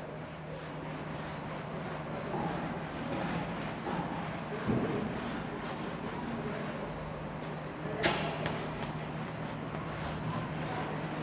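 A whiteboard duster wiped back and forth across a whiteboard, giving a continuous rough rubbing, with one short sharp sound about eight seconds in.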